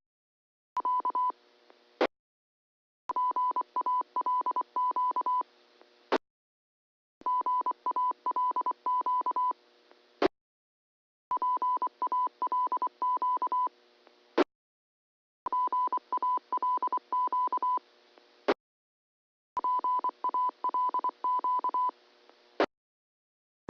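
Amateur radio repeater transmissions heard on a receiver: a steady beeping tone keyed on and off in short beeps for about two seconds at a time. The pattern repeats about every four seconds, with a sharp click and a hiss of radio noise between the bursts.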